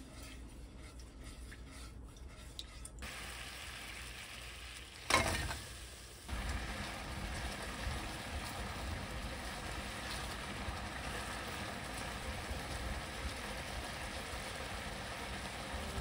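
Sugar and oligosaccharide syrup bubbling in a wok as it is stirred with a silicone spatula. About five seconds in, fried sweet potato chunks go in with a sudden loud splash and clatter, then steady sizzling and bubbling as they are stirred through the boiling syrup.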